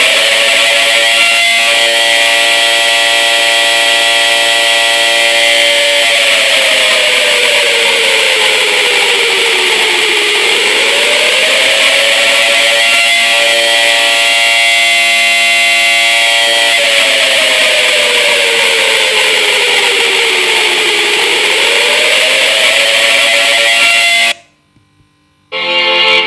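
Warning siren sounding a slow wail: the pitch rises, holds for several seconds, then falls away slowly. This happens twice, then it rises a third time and cuts off suddenly near the end.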